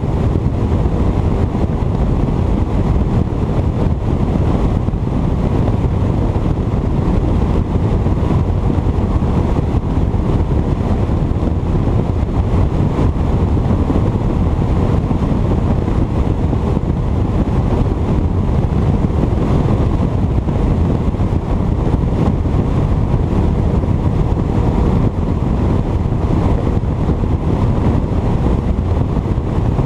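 Bass boat running at speed under its 150 hp outboard motor, heard mostly as a steady rush of wind buffeting the microphone, with water noise off the hull.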